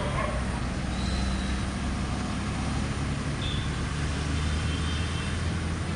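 A motor vehicle engine running steadily, a low hum under a constant hiss.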